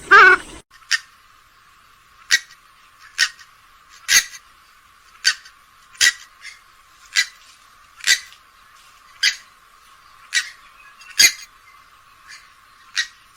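Grey-headed swamphen calling: one loud, harsh call right at the start, then a string of short, sharp notes at about one a second.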